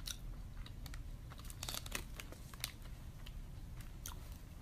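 Snack wrapper crinkling as it is handled and opened: faint, irregular sharp crackles.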